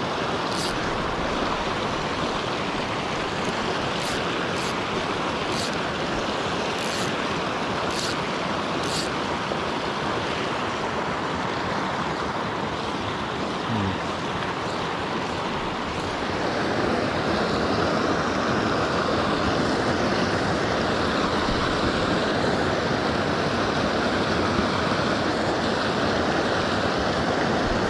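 Water rushing steadily through a lake's spillway, an even hiss that turns a little louder and brighter about halfway through. A few faint ticks in the first several seconds.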